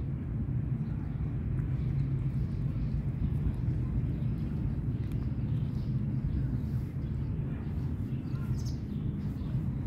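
Steady low outdoor rumble, with a few faint high bird chirps near the end.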